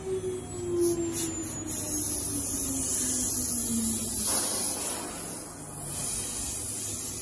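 CNC router spindle motor winding down, its whine falling steadily in pitch over about four seconds, over a steady hiss and low hum.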